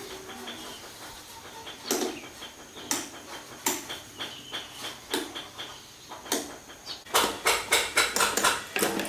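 Small metal tools and parts clinking and tapping during hand repair work: scattered single knocks, then a quick run of about a dozen taps near the end.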